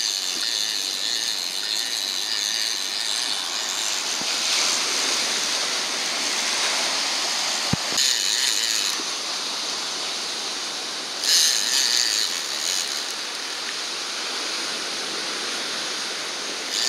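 Fishing reel ratcheting as a hooked shark is brought in, over steady surf noise.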